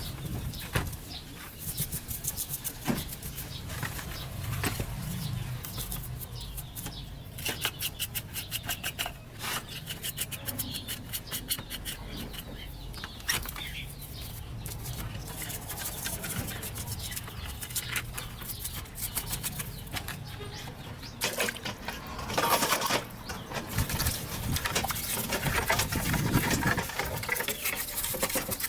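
Hand work on small parts: runs of rapid scraping or brushing strokes and scattered sharp clicks and knocks.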